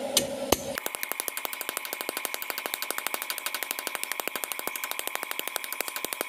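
A small motor-driven machine running with a rapid, even ticking, about ten ticks a second, over a steady whine. It starts about a second in, just after two sharp clicks.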